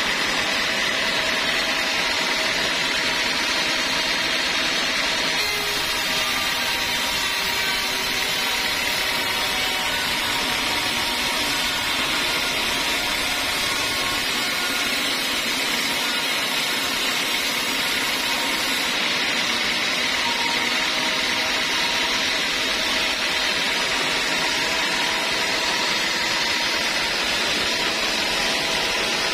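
Homemade band sawmill running steadily, its band blade cutting lengthwise through a teak log. The sound is an even, unbroken noise with a few steady high tones over it.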